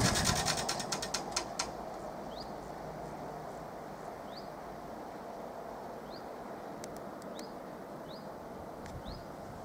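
A quick rattle of clicks dying away over about a second and a half as the half barrier boom comes to rest upright. Then quiet open-air background with a bird giving short rising chirps every second or so.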